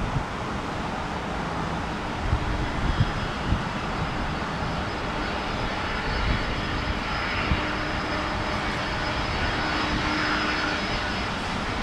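Jet airliner engines running: a steady rushing noise with a high, steady whine, swelling slightly louder toward the end. A few low thumps come about two to three and a half seconds in.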